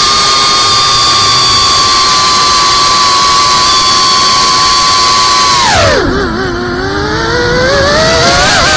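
FPV quadcopter's brushless motors whining at a steady high pitch, then dropping sharply in pitch and loudness about six seconds in as the throttle is cut, and rising again near the end as throttle comes back in.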